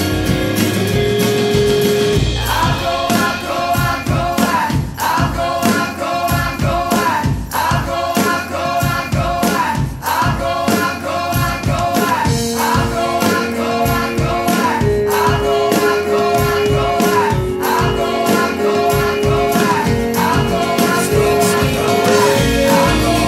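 Background song: layered singing repeats a short phrase over sustained notes and a steady beat.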